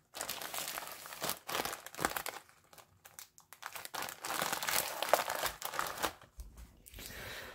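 Plastic bags of long grain rice crinkling as they are handled, in bursts with short pauses.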